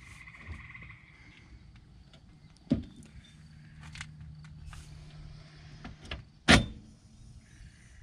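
Two sharp metal knocks about four seconds apart, the second the louder, with a few faint clicks between, as a new front wheel hub is fitted into a car's steering knuckle.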